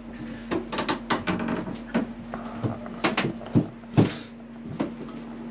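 Irregular wooden knocks and clatter, about ten sharp strikes, of galley fittings being handled and taken apart.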